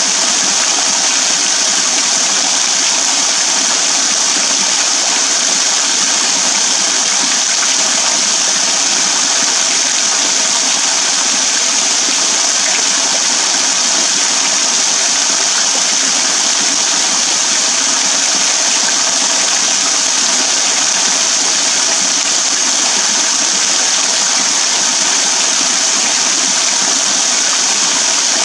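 Small waterfall pouring in thin streams off a rock overhang and splashing into a shallow pool: a steady, bright hiss of falling water.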